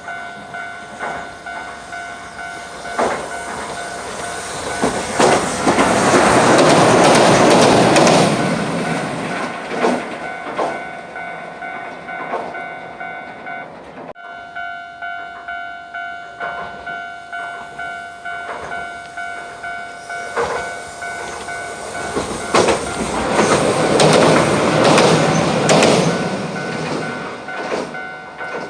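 Japanese level-crossing warning bell clanging in a steady rhythm while Hiroden electric trains pass over the crossing twice. Each pass brings a swell of wheel and track noise, about five seconds in and again near the end, louder than the bell.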